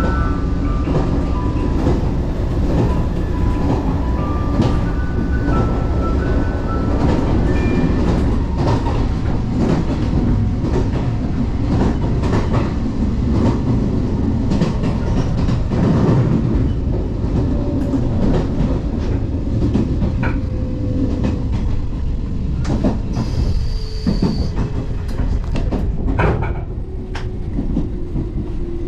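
Inside a JR 381 series express train by the door: a steady rumble with rail-joint clicks, and short high squealing tones in the first few seconds. A short hiss comes about three-quarters of the way through. Over the last ten seconds a faint tone slowly falls in pitch as the train slows.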